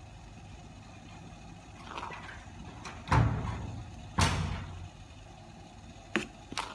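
Two dull thumps about a second apart, each dying away over about half a second, followed by two short clicks near the end.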